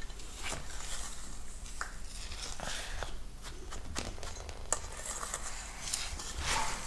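Wire whisk stirring dry powder (baking soda, Epsom salt, citric acid and cornstarch) in a stainless steel bowl, with irregular scraping and clinking of the wires against the metal.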